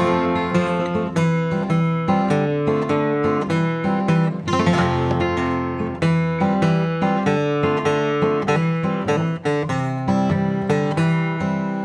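Steel-string acoustic guitar played with the fingers, a rhythmic chord pattern over a held F chord, with three fingers brushed together across the strings for the backbeat. A final chord rings out and fades near the end.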